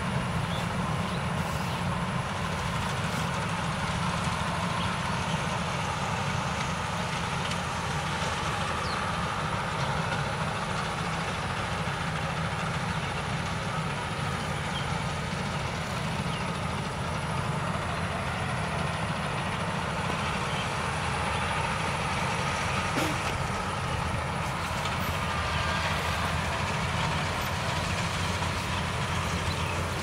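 Combine harvester engine running with a steady drone as the machine works the paddy field.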